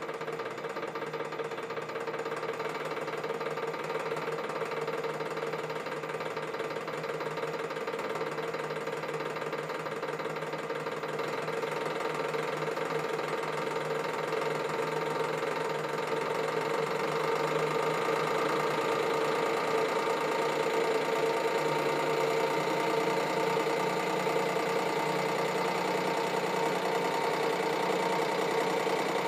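Hydraulic press pump running with a steady hum, growing slowly louder as the press bears down on a metal bar under rising load.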